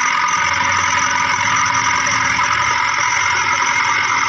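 A steady engine-like running sound that holds an even level, with no breaks or changes in pitch.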